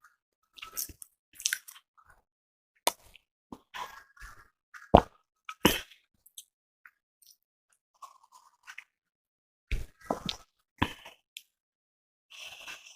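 Close-miked mouth and throat sounds from a person drinking Thums Up cola: a string of short, sudden clicks and pops, with a quiet gap from about six to nine seconds in.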